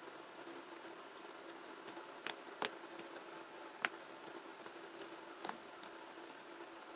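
Red slime with strawberry topping being played with by hand, giving a few sharp, separate clicks and pops a second or so apart, over a faint steady hum.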